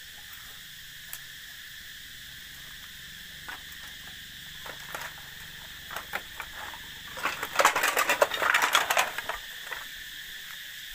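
A steady high-pitched insect chorus, with scattered clicks from about four seconds in and a dense spell of rapid clicking and crackling from about seven to nine seconds in.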